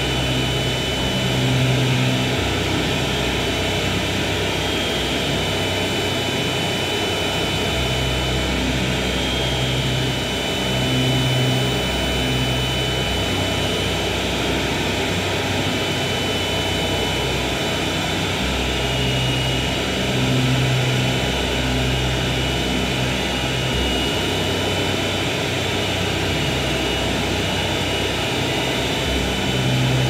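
Experimental noise music: a dense, steady wall of electronic noise with a low drone that swells in and drops out every few seconds.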